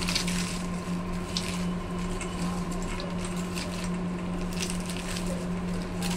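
Crisp fried papad pieces crackling and crunching irregularly as a hand tosses them with chopped vegetables and fried peanuts in a steel bowl, over a steady low hum.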